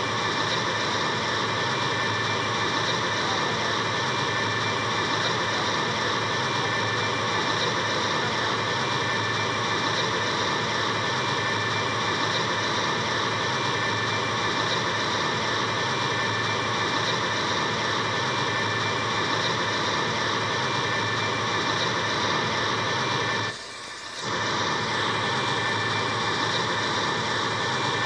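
Steady jet-like roar of fire from the burning derailed tank cars, with a faint high whistle over it. It drops out briefly about 23 seconds in.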